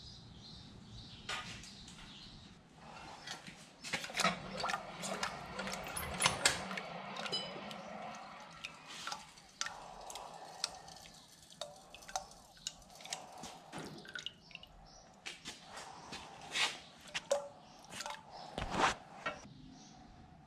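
Hot san mai knife blade, a 52100 high-carbon core between 304 stainless, quenched in a quench tank. The liquid crackles and pops in irregular sharp snaps as the steel hardens.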